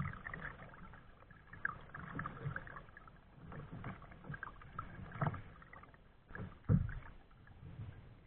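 Kayak paddle strokes dipping and splashing in the water, irregular, with a few louder thumps: one at the start, one about five seconds in and one near seven seconds.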